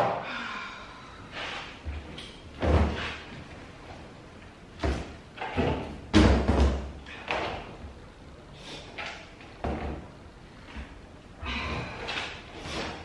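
Goods being rummaged and shifted inside a 55-gallon plastic barrel: a sharp knock right at the start, then irregular thumps and knocks as items are moved about.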